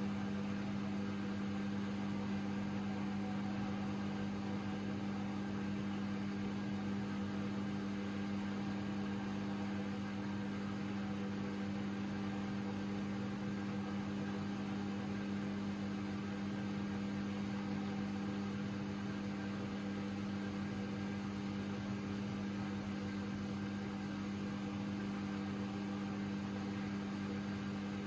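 AEG Lavamat 6610 washing machine running with a steady electric hum, one strong low tone over a faint hiss, unchanging throughout.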